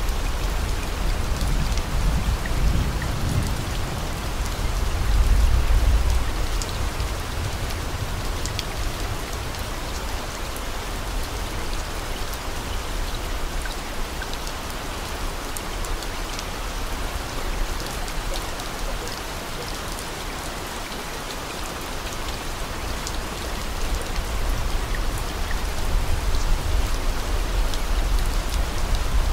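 Steady rain with scattered drop ticks. A low rumble swells around five seconds in and again near the end.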